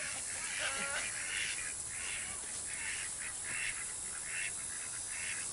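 Poultry calling: a harsh call repeated about seven times, roughly one every three quarters of a second, over a steady high hiss.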